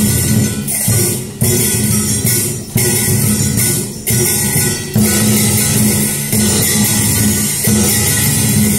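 Percussion-led traditional Vietnamese music accompanying a water puppet show, with drums and jingling metal percussion and a loud stroke every second or so.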